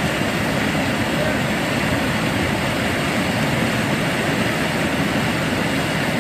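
Floodwater rushing steadily over the edge of a submerged causeway, a constant dense noise that does not change.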